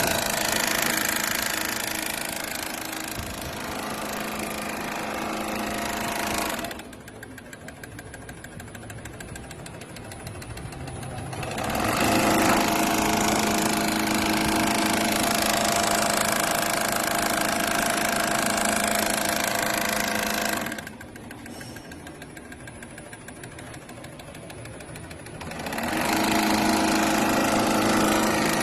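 Heavy-duty mattress sewing machine running at speed with a steady mechanical hum, in three spells of several seconds. About seven and twenty-one seconds in it drops to a quieter low hum for a few seconds before running up again.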